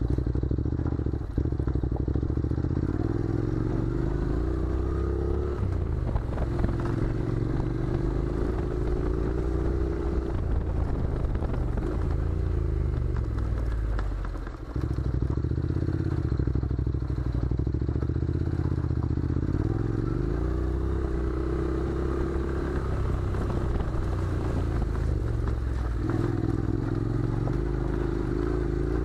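Honda NC700's 670 cc parallel-twin engine running under way at low revs, its pitch rising and falling with the throttle several times, with a brief dip about fourteen and a half seconds in. Tyres crunch and stones clatter on the gravel track underneath.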